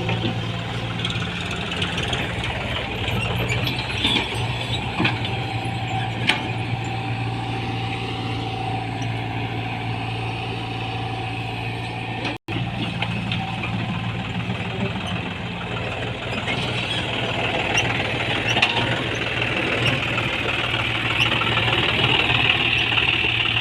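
Tata Hitachi 120 excavator's diesel engine running steadily as it works, with a high steady whine over the engine hum and a few sharp knocks in the first part. The sound cuts out for an instant about halfway, and a hiss grows louder toward the end.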